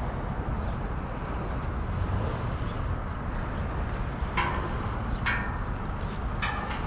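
Steady low outdoor rumble, with three short sharp sounds a little over halfway through.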